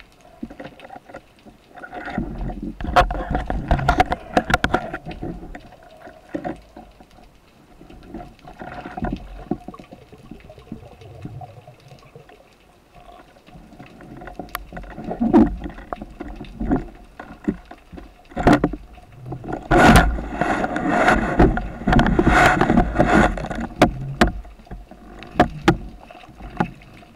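Underwater sound of a freediver swimming down: muffled water rushing and gurgling in surges, with scattered sharp clicks and knocks. The loudest surges come a couple of seconds in and again about two-thirds of the way through.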